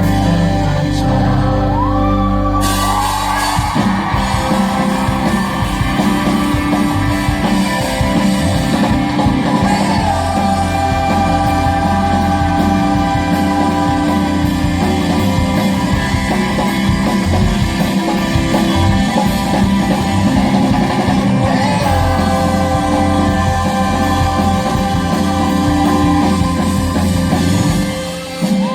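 Live pop-rock band playing at full volume with a lead vocal, drums and bass, with shouts from the audience mixed in.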